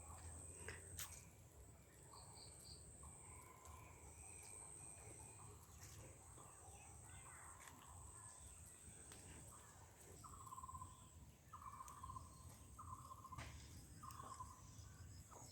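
Faint outdoor countryside ambience: a steady high-pitched insect drone, with a bird giving four short repeated calls in the last few seconds.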